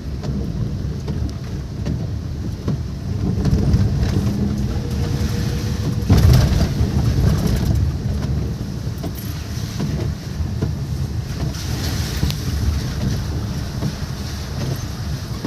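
Heavy rain pouring down with fine crackling drop hits, under a strong rumble of wind buffeting the microphone, which surges louder about six seconds in.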